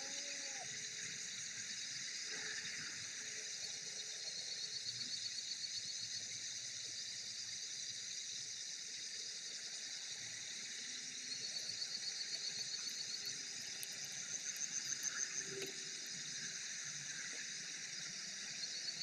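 Night-time outdoor ambience of insects: a steady high hiss with several bursts of fast, evenly pulsed chirping.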